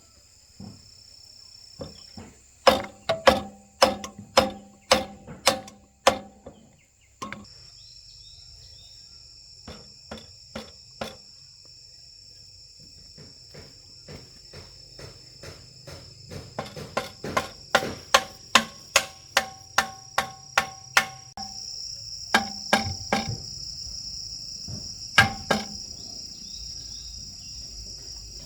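A hammer striking metal in runs of ringing blows: about two a second early on, a quicker run later, then a few last strikes near the end. Insects trill steadily underneath.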